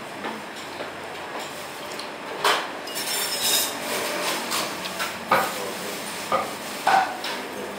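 Chopsticks and ceramic bowls clinking in a small eatery: a scattering of short clinks and knocks, the loudest about two and a half, five and seven seconds in, over steady restaurant background noise.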